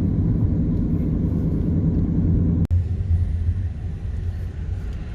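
Steady low road rumble of a car heard from inside the cabin while driving. It cuts off sharply about two and a half seconds in, then a quieter rumble carries on.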